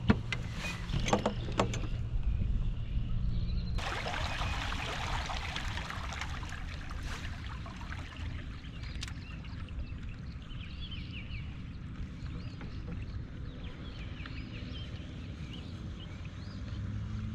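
Outdoor sound on a canoe on the water. A steady low hum and a few sharp knocks come in the first two seconds. After a change at about four seconds comes an even rush of water and wind noise, with faint short high chirps in the second half.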